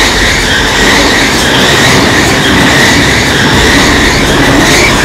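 A train running on rails: a loud, steady rush of wheel-and-track noise.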